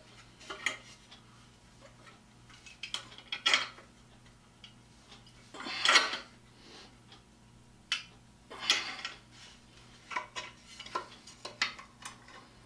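Small metal screw clamp being cranked tight on a wooden board and then loosened: a string of metallic clicks, clinks and short rattles, the loudest clatter about six seconds in.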